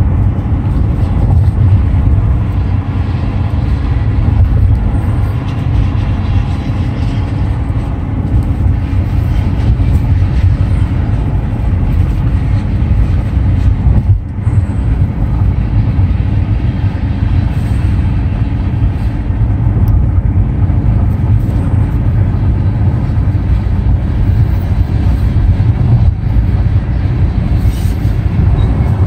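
Steady low rumble of road and engine noise inside a moving car at speed, with a brief dip about halfway through.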